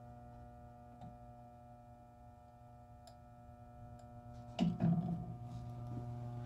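Steady electrical hum from an electric lead melting pot as molten lead drips from its bottom spout into a wooden lure body, with a few faint ticks and a brief clunk about four and a half seconds in.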